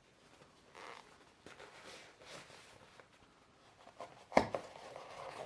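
Soft rustling and scraping of hands handling a watch presentation box, with one sharp click a little past four seconds in.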